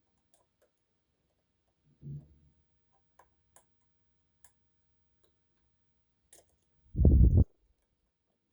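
Lock picks clicking faintly inside an Adamant spinning-key lock, a few light ticks spread over several seconds. A dull low thud comes about two seconds in, and a louder low thump, about half a second long, near the end.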